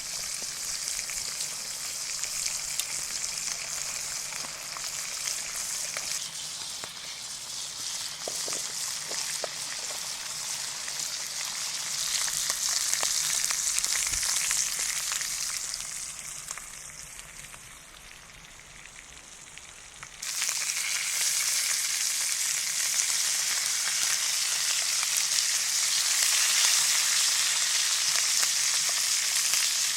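Brown trout frying in a pan of bacon and butter, sizzling steadily. The sizzle dies down for a few seconds and then comes back suddenly at full strength about two-thirds of the way in.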